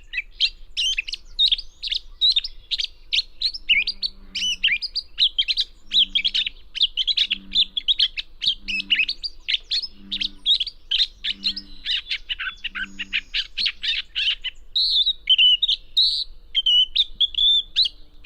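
Gray catbird singing, a bird that mimics other species: a fast, continuous jumble of varied short warbled and squeaky notes. From about four seconds in, a low two-pitched hoot repeats in the background about every second and a half, stopping shortly before the song shifts to slower, slurred whistles near the end.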